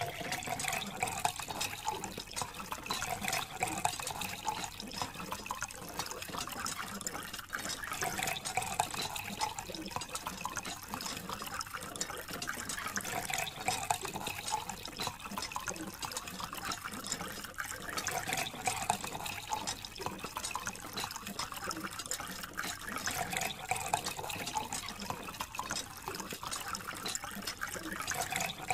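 Thin stream of water from a small plastic hose splashing steadily onto sand-caked toy tractors and wet sand.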